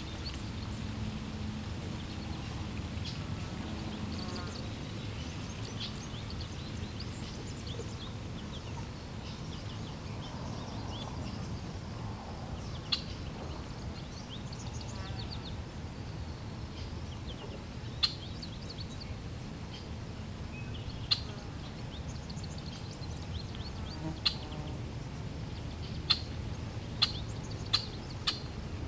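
Steady low rush of flowing water with small birds chirping throughout, and a handful of sharp clicks in the last third.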